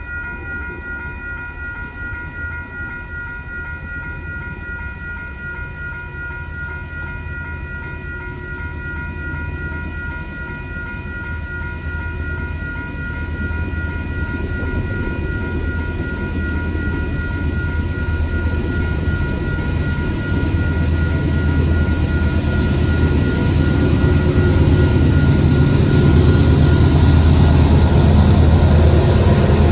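Railroad crossing's electronic warning bell ringing steadily while the signals flash. The low rumble of an approaching Union Pacific diesel locomotive builds under it, drowns out the bell in the second half and is loudest near the end as the train reaches the crossing.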